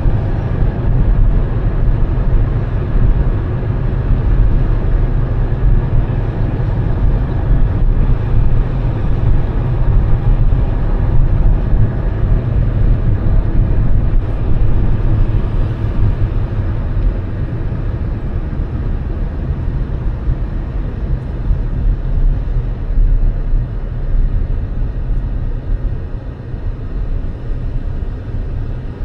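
Steady, loud low rumble of a moving vehicle: road and engine noise, easing off slightly in the second half.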